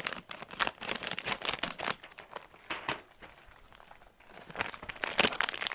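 Toy packaging being torn open and crinkled by hand: quick crackling rustles for about two seconds, a short lull, then more crinkling near the end.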